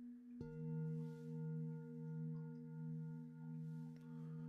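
Peter Hess singing bowls ringing: a deeper bowl is struck about half a second in and joins the ring of a bowl already sounding. Both ring on with a slow, pulsing waver.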